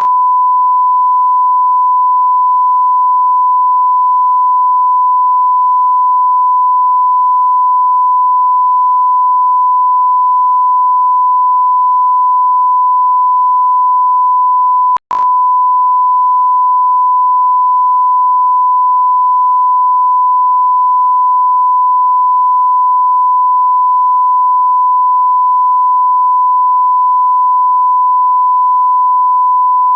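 Steady 1 kHz sine-wave beep tone, a single pure electronic pitch held continuously, with a split-second break about halfway through where the loop restarts.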